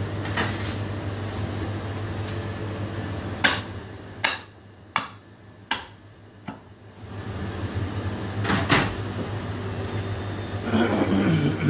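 A 3 kg forged-steel butcher's axe chopping a cut of beef on a wooden chopping block: five heavy chops a little under a second apart, then one more about two seconds later, over a steady low hum.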